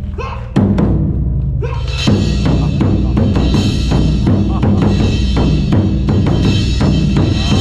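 Drum-led percussion music: drums struck in a fast, dense rhythm, joined about two seconds in by sustained ringing metallic tones.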